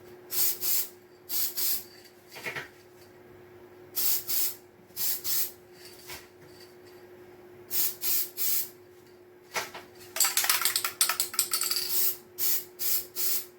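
Aerosol can of silk plant cleaner hissing in short sprays, mostly in quick pairs, with one longer spray of about two seconds near the end.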